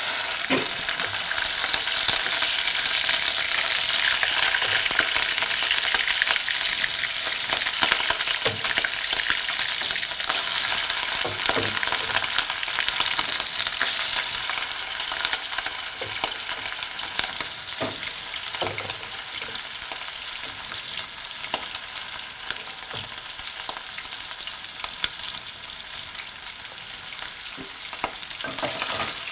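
Cubes of raw liver sizzling in hot cooking oil just after going into the pan. The sizzle starts loud and slowly grows quieter, with scattered pops and clicks through it.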